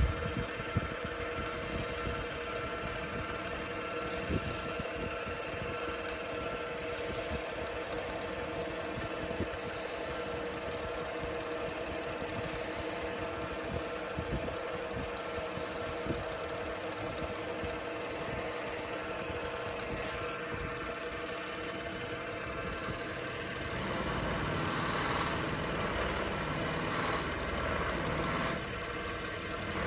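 Wood lathe running at speed with a steady hum and whine while finish is wiped off the spinning crochet hook blank. A little over twenty seconds in, the sound turns louder and rougher.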